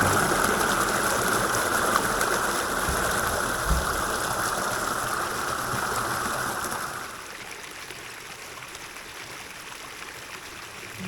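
Running stream water, a steady rushing noise that drops to a quieter, softer flow about seven seconds in.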